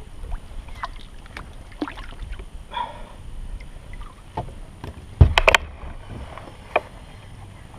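Light knocks and clicks of gear handled on a fishing kayak, over a low rumble. Just after five seconds in comes a loud cluster of three or four sharp knocks, then one more a little later.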